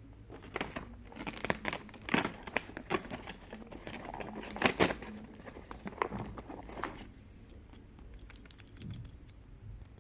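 Wrapping on a handmade advent calendar being crinkled and torn open: a dense run of irregular rustles and crackles for about seven seconds, then only a few light ticks.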